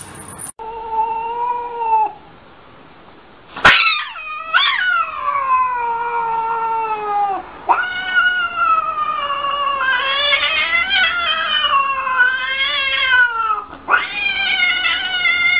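Domestic cat caterwauling: one short call, then long drawn-out yowls that waver and slide down in pitch, one after another with short breaks. A sharp click comes just before the long yowls begin. The yowling goes with an arched-back, sideways stance, the threat cry of an agitated cat.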